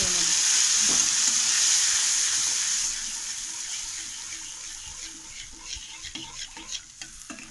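Yogurt and spice paste sizzling hard as it hits hot oil in a steel kadai with the flame off. The sizzle dies away after about three seconds while a steel spatula stirs and scrapes it around the pan.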